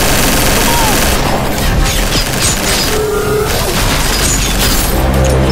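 Film battle sound effects: rapid gunfire and heavy booming blasts, with music mixed underneath.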